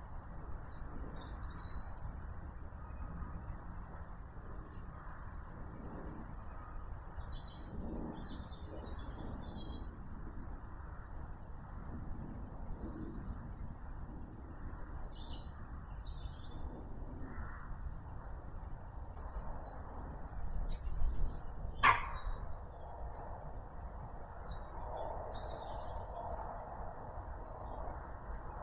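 Quiet woodland ambience: small birds give short, scattered chirps and calls over a low, steady background noise. A single sharp click, the loudest sound, comes about three-quarters of the way through.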